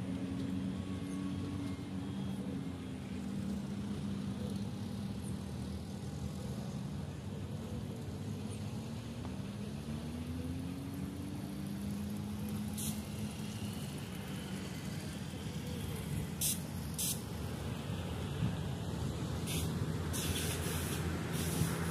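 Distant road traffic: a vehicle engine's hum that falls in pitch, then rises and holds, over a steady low rumble. A few short, sharp high ticks come near the end.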